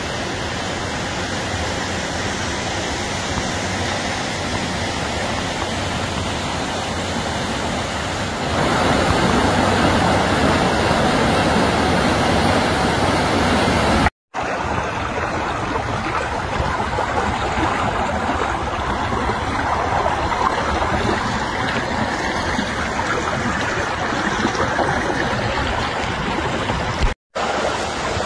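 Running water of a partly frozen creek and waterfall, a steady rushing wash that grows louder after about eight seconds. It drops out to silence briefly twice, once near the middle and once near the end.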